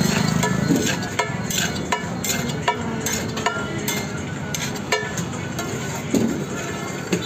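Metal spatula scraping and clinking irregularly against a large flat griddle (tawa) as a heap of fried rice is stirred and tossed, over a steady background hiss.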